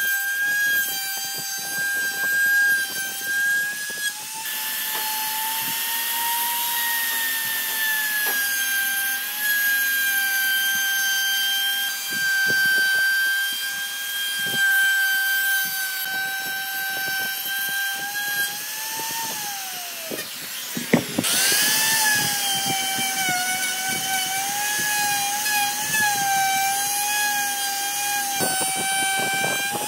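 An electric power tool's motor whining steadily at a high pitch, wavering slightly as the load changes. About 19 seconds in it winds down, and about 21 seconds in it starts again with a sharp click and spins back up.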